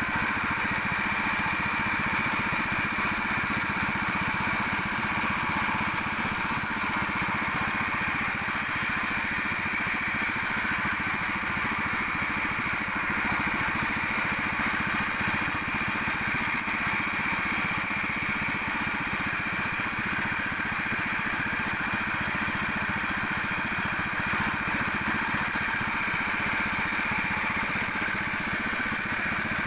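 Sawmill machinery running steadily, a continuous engine-like drone with no pauses or changes.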